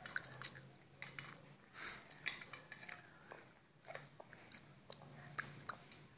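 Quiet spoon-feeding sounds: scattered small clicks and wet mouth smacks as a plastic baby spoon is dipped in a cup and put into an infant's mouth, with one brief soft rush of noise about two seconds in.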